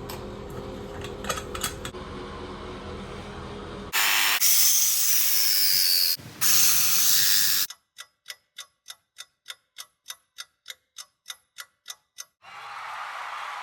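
A loud rushing hiss for a few seconds, then an even run of sharp mechanical clicks, about four a second, like a ratchet.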